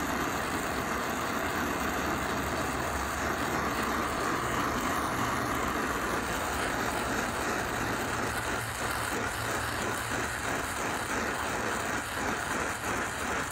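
Gas torch flame hissing steadily as it heats a brazed steel hydraulic-line fitting to dry out moisture before the brazing rod is applied, with a steady low hum underneath.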